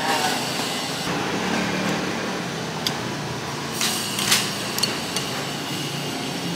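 Steady background din of a street food stall, with a few short sharp clicks and clinks, such as utensils on dishes, the loudest a little past the middle.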